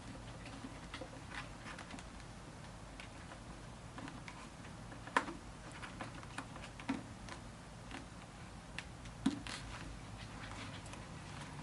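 Hands handling a full-face motorcycle helmet and working its cheek pads back in: scattered small clicks and taps, with two sharper knocks about five and nine seconds in.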